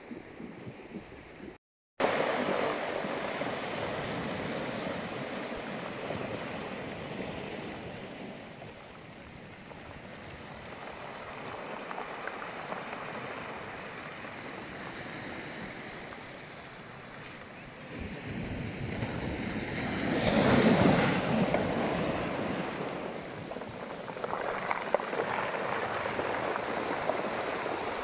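Sea surf breaking and washing over a beach of rounded pebbles and cobbles: a steady rush that swells with each wave, loudest about twenty seconds in and rising again a few seconds later.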